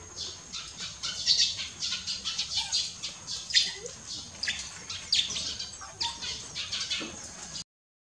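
Small birds chirping, many quick high chirps a second over a faint steady high whine. The sound drops out briefly near the end.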